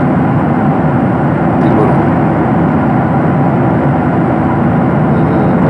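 Steady cabin noise of a jet airliner in cruise: an even, unchanging rush of airflow and engine noise heard from inside the passenger cabin.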